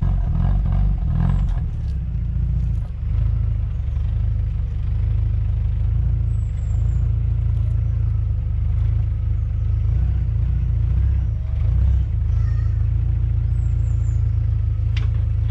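Volkswagen Golf Mk3's engine running close by as the car moves and settles beside the microphone: a steady low rumble, slightly louder and more uneven in the first couple of seconds.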